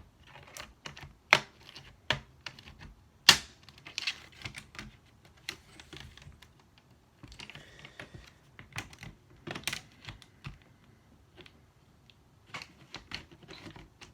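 Plastic retaining clips of a laptop's display bezel popping loose as a thin plastic pry tool is twisted in between screen and bezel: irregular sharp clicks, a few of them loud snaps. A faint plastic squeak a little past the middle.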